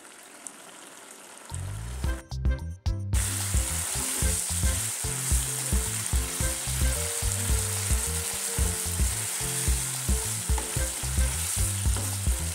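Fried tofu and green beans sizzling in chilli sauce in a wok while being stirred with a wooden spatula; the dish is at its last stage, ready to come off the heat. The sizzle is faint at first and turns loud and steady about three seconds in.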